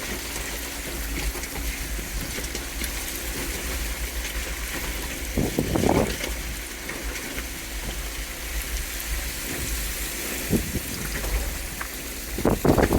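Flood water rushing and splashing while the Jeep Wrangler passes through it, over a constant low rumble. There is a louder surge of water about halfway through and a much louder one near the end.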